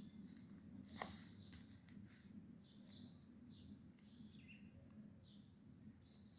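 Faint scratching of a pen on paper in short, irregular strokes over a low steady room hum, with one sharp tap about a second in.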